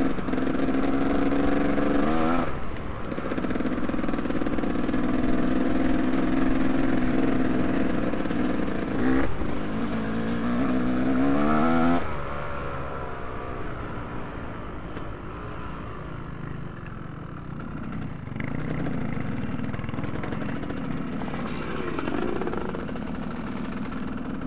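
Motocross motorcycle engines running on a race track, holding steady and then revving up in pitch several times as a bike accelerates. About halfway through, the sound drops to a quieter, more distant engine drone.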